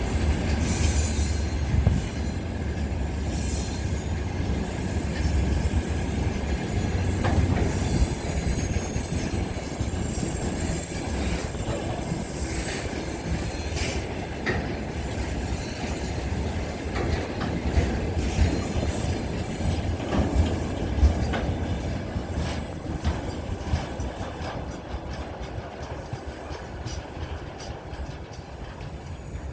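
A train hauled by a 2TE10M diesel locomotive rolls slowly into a station, its wheels squealing on the rails with some clickety-clack, the rumble easing off near the end. Swifts give shrill, high calls above it throughout.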